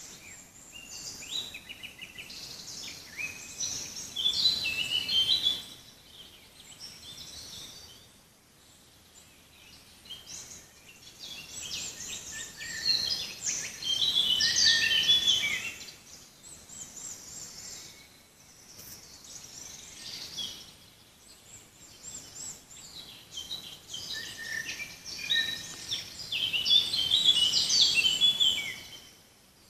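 Songbirds singing in a forest: three loud bursts of fast, varied high song, each several seconds long, with softer chirps in between.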